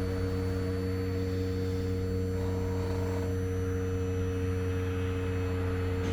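Powered engine-hatch lift motor on a Cigarette 36 Gladiator running steadily as it raises the hatch: an even hum with a few fixed tones.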